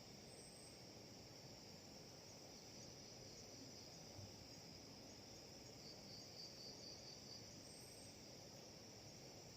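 Faint, steady chirring of crickets in a high, even band. Near the end it breaks into a short run of quick pulses.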